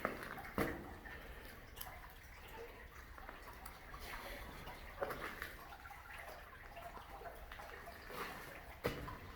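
Faint water sounds, dripping and light splashing, with a few scattered sharp knocks.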